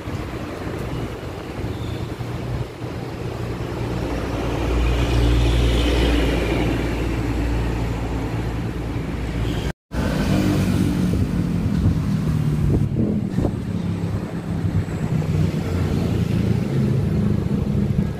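Motor vehicle engine noise with a steady low hum, swelling louder for a few seconds in the middle. It breaks off in a brief cut to silence about ten seconds in, then carries on.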